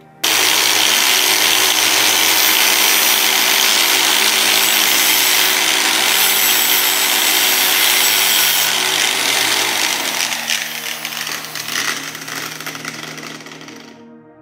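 Angle grinder grinding the end of a thin metal lamp tube, a loud, even grinding noise that starts abruptly. From about ten seconds in it turns quieter and choppier, then stops just before the end.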